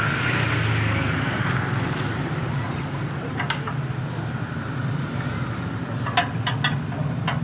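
Steady low mechanical hum with a noisy haze, broken by a few sharp clicks: one about three and a half seconds in and a quick cluster near the end.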